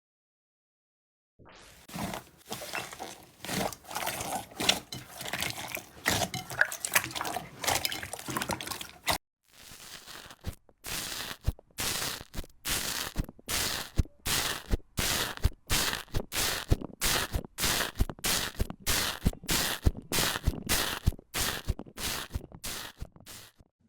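Slime being squeezed and poked by hand, crackling and popping. After a cut about nine seconds in, it gives a regular run of wet squishes, about two a second.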